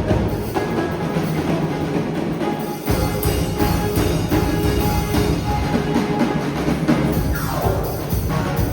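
Live band music with a drum kit and percussion keeping a steady beat under sustained instrument chords, with a short drop in the bass a little under three seconds in.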